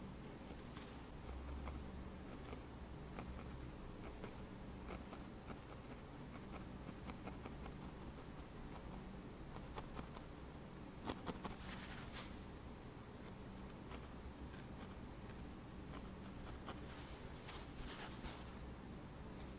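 Felting needle stabbing repeatedly into wool, sculpting a small needle-felted cat nose: soft, irregular scratchy pokes, with a few louder clicks about eleven seconds in.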